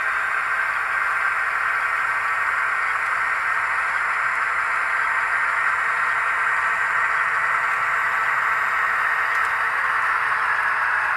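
HO-scale model train led by two diesel locomotives running on the layout: a steady rushing noise from the wheels on the track and the locomotive motors.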